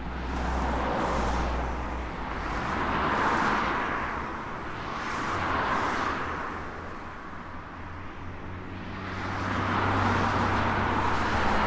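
Road traffic: vehicles passing one after another, the noise swelling and fading every two to three seconds over a low steady hum.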